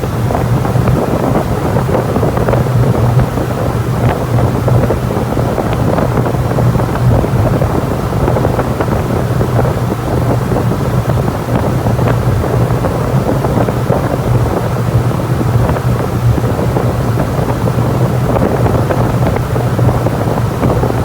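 HVAC air-handling unit running: a steady rush of moving air over a constant low hum.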